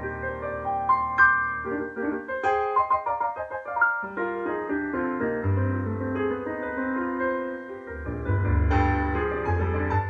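Solo piano playing, with a quick run of short notes in the middle and heavy low bass notes under sustained chords.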